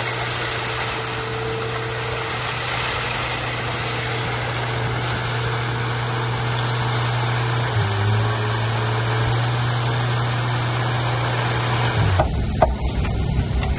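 Heavy equipment's engine running steadily under a constant hiss. The engine's pitch shifts about eight seconds in, and the sound changes abruptly near the end.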